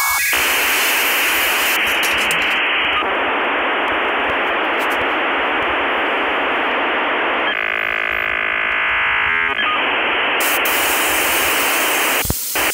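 Steady, even hiss like filtered white noise in an electronic music track, with a brief buzzy, tonal stretch about two-thirds through; it cuts off abruptly just before the end.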